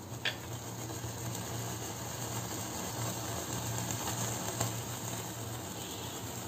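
Butter-brushed tandoori chicken leg sizzling over an open gas-burner flame, together with the burner's steady hiss, as the chicken is charred for a smoky flavour. Two brief clicks, one just after the start and one past the middle.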